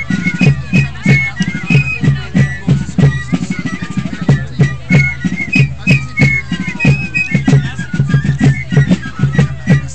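Patriotic music: a high piping melody over a steady drum beat.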